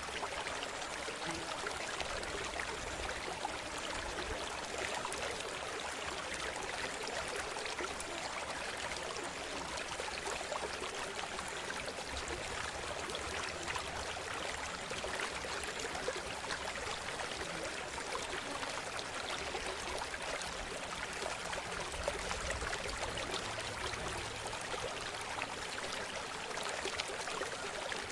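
Running water in a river: a steady rush with many small splashes and trickles.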